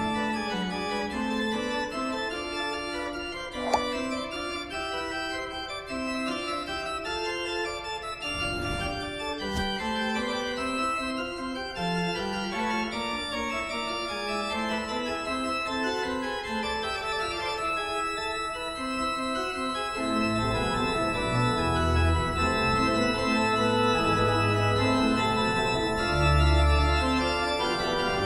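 Organ music: a slow melody of held chords, with deep bass notes joining about two-thirds of the way through. One sharp click a few seconds in.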